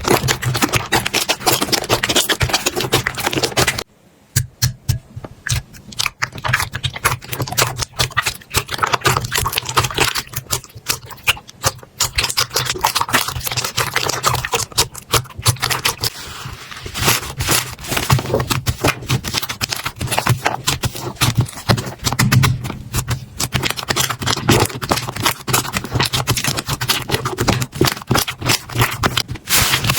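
Slime being squeezed, poked and stretched by hand, giving dense, irregular clicking, crackling and popping, with a brief lull about four seconds in.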